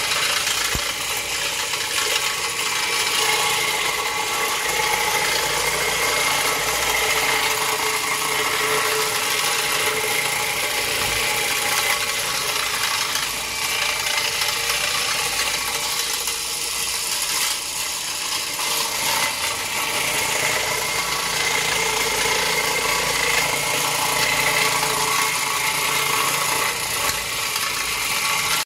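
An XL Pro orbital carpet machine with a bonnet pad runs steadily as it scrubs the carpet, giving a constant motor hum with a rattle.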